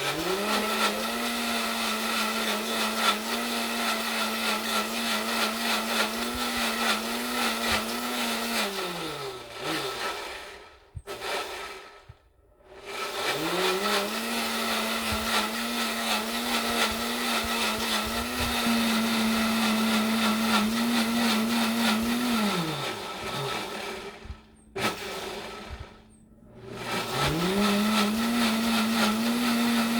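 Breville Bluicer blender motor running a smoothie program on barbecue sauce. It spins up, holds a steady speed, then winds down and stops for a couple of seconds before spinning up again. The cycle runs about three times.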